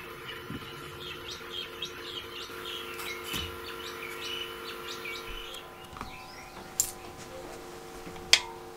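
Small birds chirping and twittering over a faint steady hum, the chirps thinning out after about five seconds. Two sharp clicks follow near the end, about a second and a half apart, the second louder.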